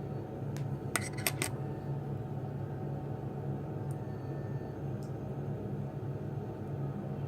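A few light clicks and clinks from handling a small Assa lock cylinder as it is taken apart: a quick cluster of three about a second in, then single clicks near four and five seconds, over a steady low hum.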